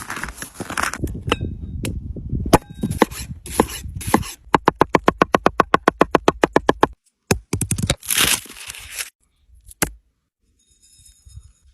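Food-preparation sounds cut together: knocks and scrapes, then a fast, even run of about eight sharp strikes a second for a couple of seconds, then a few separate clicks with short silent gaps between the cuts.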